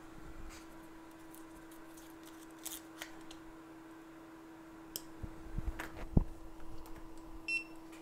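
Workbench handling noise: a handful of light clicks and knocks as tools are picked up and set down, the loudest about six seconds in, over a steady electrical hum. A short electronic beep sounds near the end.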